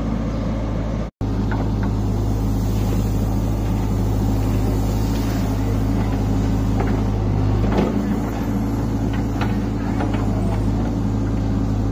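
Diesel engine of a JCB backhoe loader running steadily as it scoops and loads wheat. The sound cuts out for an instant about a second in, and swells briefly near the middle.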